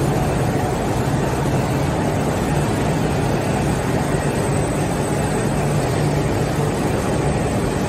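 Steady machinery noise of a running board-coating production line: conveyor rollers, belts and drive motors running, with a low, constant hum underneath.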